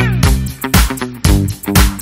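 Background music: an upbeat dance track with a steady beat, about two beats a second, over a bass line.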